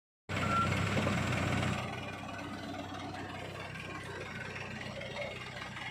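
Heavy vehicle diesel engine running steadily, louder for the first couple of seconds and then easing off to a lower level.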